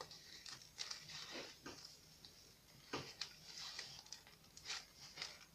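Faint, scattered rustling and crinkling of paper as a small paper-wrapped bundle is handled and a ribbon is tied around it.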